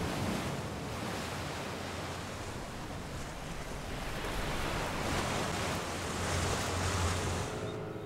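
Sea water churning and breaking into whitewater: a steady rushing wash that swells in the second half and fades away just before the end.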